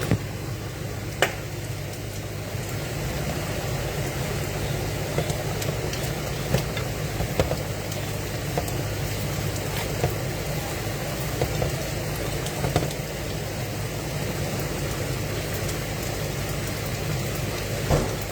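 Food cooking in a pan on a stove: a steady low hum under a faint sizzle, with occasional light clicks and taps.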